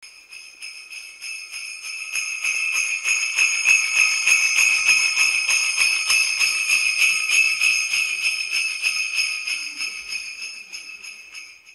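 Small bells jingling in a rapid, continuous shake, swelling over the first few seconds and then slowly fading away.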